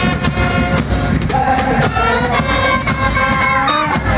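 Police marching band playing a march: a melody of held brass notes over rapid side-drum beats.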